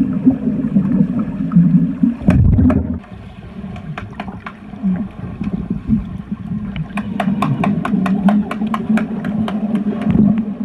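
Muffled underwater sound of water churning and bubbling around swimmers, with a heavy thud about two seconds in. Near the end there is a run of sharp clicks, about four a second.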